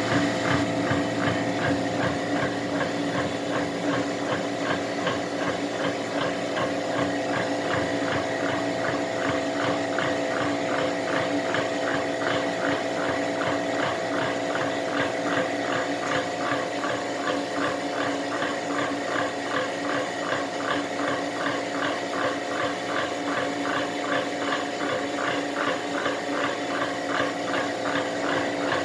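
A regular ticking, about two to three ticks a second, over a steady hum. It is the abnormal noise (異音) coming from the Trittico.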